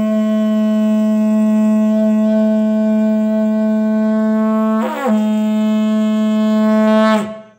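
A one-metre length of 1-inch plastic wiring conduit blown with the mouth like a conch shell (shankh), giving one long steady horn-like note. The note breaks briefly with a dip in pitch about five seconds in, then falls in pitch and stops shortly before the end.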